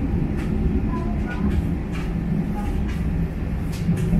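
Diesel railcar running along the track, heard from inside the car: a steady engine drone over wheel-on-rail rumble, with a few faint clicks.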